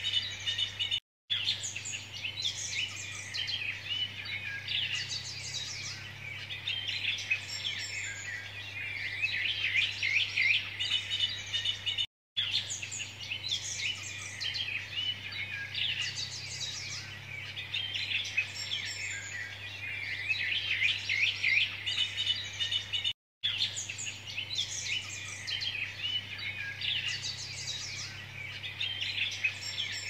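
A dense chorus of small birds chirping and singing, over a low steady hum. The recording loops about every eleven seconds, with a split-second dropout at each join.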